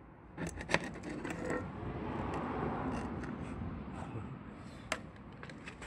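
A few light metallic clicks and a scraping rustle, which swells in the middle and fades, around a cracked exhaust muffler as it is handled.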